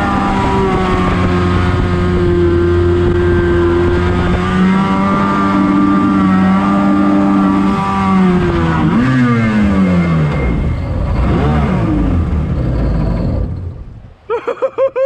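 Small boat's outboard motor running steadily under way, then throttled back so its pitch falls, with a short rev and drop before it goes quiet about fourteen seconds in. A person's voice starts just at the end.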